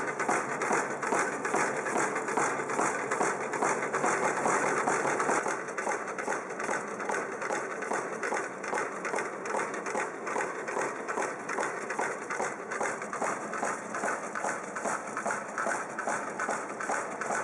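Takahashi Model 350 high-speed food cutting machine running, with an even, rapid repeating mechanical beat. It gets somewhat quieter about five and a half seconds in.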